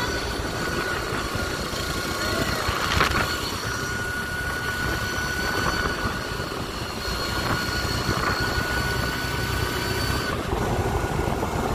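Open-top buggy driving along a road: wind rushing over the microphone over the engine and tyre noise, with a thin steady high whine that stops near the end.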